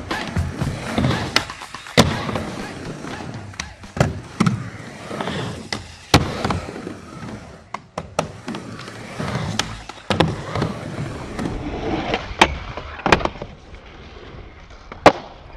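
Skateboard rolling back and forth on a ramp, its wheels running, with sharp clacks of the board and trucks striking about every two seconds.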